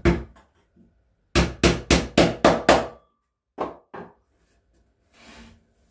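Small hammer tapping a nail into the top edge of a wooden box: one blow, then a quick run of six strikes at about four a second, then two lighter knocks.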